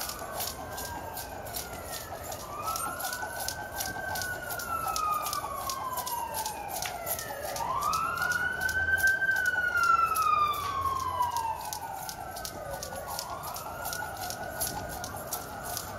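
Emergency vehicle sirens wailing, several overlapping long sweeps that each rise quickly and fall slowly, loudest about halfway through. Under them, the quick, regular ticks of a jump rope slapping the concrete.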